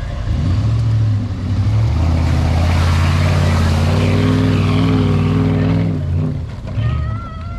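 Willys Jeep engine revving hard under load: it climbs, holds high revs for about four seconds, then drops back, with a short second burst of throttle near the end.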